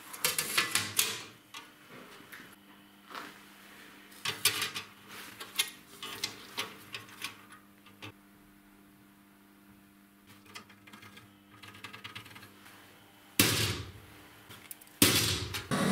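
Thin sheet-metal panel being handled and shifted on a metal-topped workbench, clattering and rattling in scattered bursts. Near the end come two sharp hammer blows on a centre punch, marking a steel hinge's screw hole.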